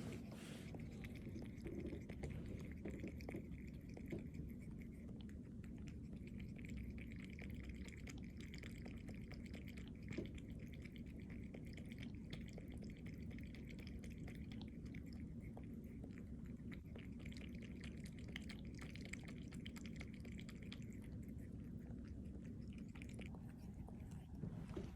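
A cat chewing and biting venison: faint, irregular wet clicks and smacks of eating, over a steady low hum.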